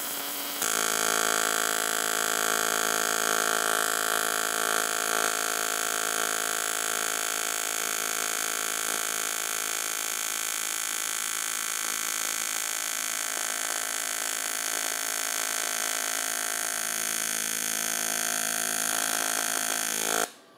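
AC TIG welding arc on aluminum, set to about 120 Hz AC with 73% negative balance. It opens with a hiss, and about half a second in the arc takes hold as a steady, loud buzz that runs until it cuts off abruptly just before the end.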